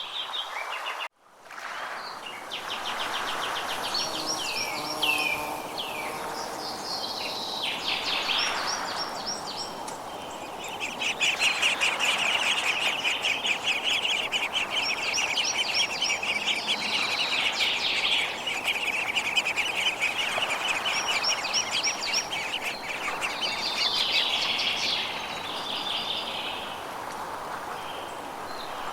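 Forest songbirds chirping and singing, with a long rapid trill through the middle, over a steady rushing background. The whole sound cuts out for a moment about a second in.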